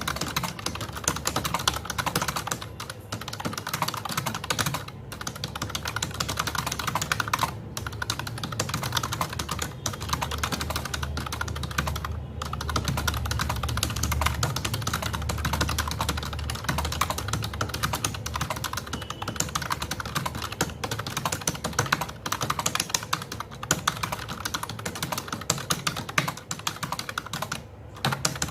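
Fast touch typing on a computer keyboard at about 84 words a minute: a rapid, steady stream of keystrokes with a few brief pauses.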